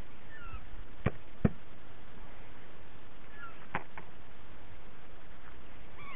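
Four sharp knocks in two pairs, one pair about a second in (the second knock the loudest) and another about four seconds in, with a few faint short falling bird chirps between them and a louder bird call right at the end.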